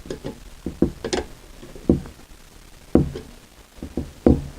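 Screwdriver turning a Jubilee clip to clamp the rubber gas hose onto the burner's connector: irregular sharp clicks and knocks of the tool and metal parts, about ten in all.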